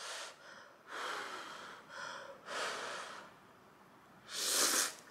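A person eating a large mouthful of steaming-hot instant noodles: a run of breathy puffs and slurps, about five in all, with the loudest slurp near the end.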